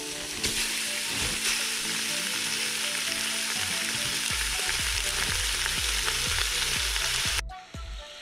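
Chunks of raw pork sizzling as they hit a hot metal cooking pot, a steady hiss that cuts off suddenly near the end.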